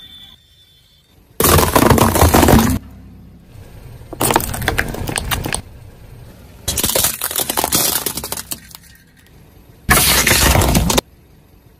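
Four crushing sounds, each lasting about a second, as a car tyre rolls over plastic toys and objects and they crunch and crack apart. The last, about ten seconds in, is a plastic soda bottle bursting on a bed of nails and spraying its liquid.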